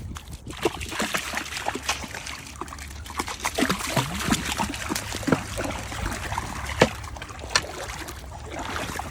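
Shallow water splashing and trickling, with irregular sharp splashes of steps wading through it.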